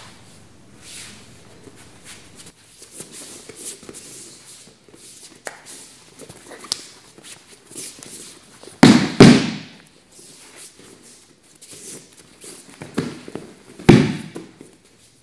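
Wrestling on training mats: bare feet shuffling and scuffing, then bodies slamming onto the mat in takedowns, a heavy double thud about nine seconds in and another thud near the end.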